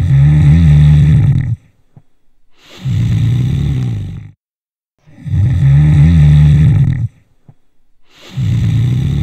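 A person snoring: four low-pitched snores about a second and a half each, alternately louder and quieter, with short pauses between breaths.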